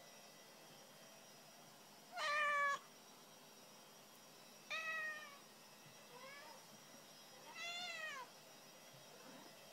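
A black-and-white long-haired cat meowing four times. The first meow, about two seconds in, is the loudest and longest; a short, faint one falls between the second and the last.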